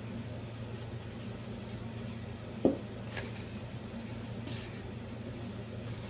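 A hand squeezing and working crumbly dough in a plastic bowl: soft squishing and rustling, with a single sharp thump about two and a half seconds in. A steady low hum runs underneath.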